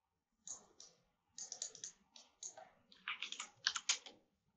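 Typing on a computer keyboard with mouse clicks: a scattered run of short, light taps, busiest about three to four seconds in.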